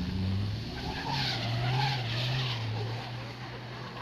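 Race car engine revving up, then held at high revs, with tyres squealing and skidding from about a second in.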